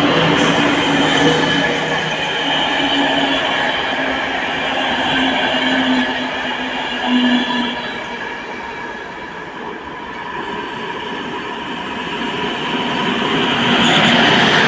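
Passenger coaches rolling past on the rails, with steady wheel noise and a held tonal screech from the wheels that fades out about halfway through as the train moves away. The sound then swells again as a Czech Railways 'Brejlovec' diesel locomotive approaches and passes close near the end, its engine running over the wheel noise.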